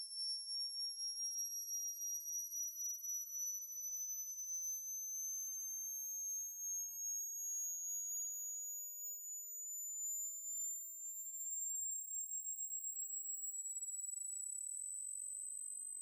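Heavily pitched-up cartoon scream sound effect stretched into a thin, very high-pitched whine: two pure tones slowly rising in pitch, wavering rapidly in loudness.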